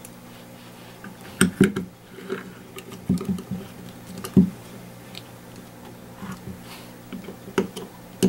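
Scattered small clicks and taps of an Allen key working the grip screws on a pistol frame, with the gun being handled on the bench, the sharpest knocks about one and a half, four and a half and seven and a half seconds in.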